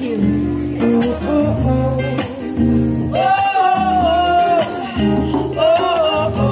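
Street band playing live: a singer on a microphone over acoustic guitar, with a trumpet joining in, a long held note about three seconds in.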